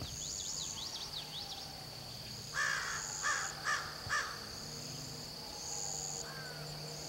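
A bird gives four harsh, caw-like calls in quick succession about two and a half seconds in, the first a little longer than the rest, over a steady high drone of insects. Quick rising and falling bird chirps are heard in the first second and a half.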